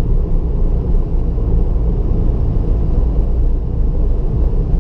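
Nissan Fairlady Z (Z33) with a VQ35DE V6 and HKS SSM aftermarket exhaust, cruising steadily, heard from inside the cabin. It is a steady low drone of engine, exhaust and tyre noise that holds one pitch throughout.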